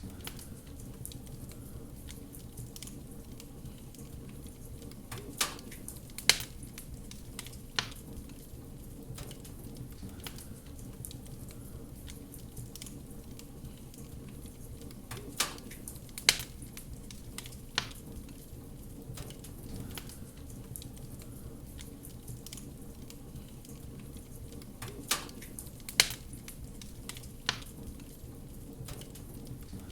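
Fireplace fire crackling over a steady low rumble, with sharp pops standing out in groups of three about every ten seconds.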